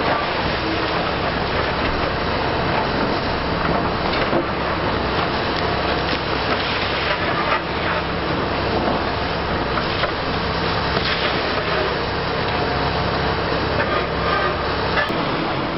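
Liebherr R 960 high-reach demolition excavator's diesel engine running steadily, with continuous crunching and cracking and scattered knocks as building material is broken apart.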